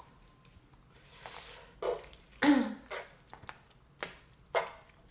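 A few short, scattered eating noises: mouth sounds and sharp clicks of chopsticks against the grill pan as a shrimp is picked up.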